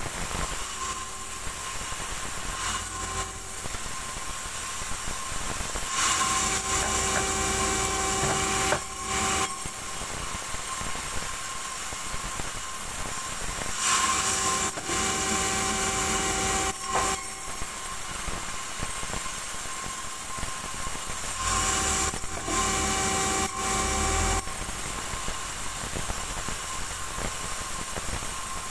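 A sawmill's vertical band saw running steadily with a constant hum. Three times, about 6, 14 and 22 seconds in, the blade cuts through a log for about three seconds, and each cut is louder and harsher than the running between cuts.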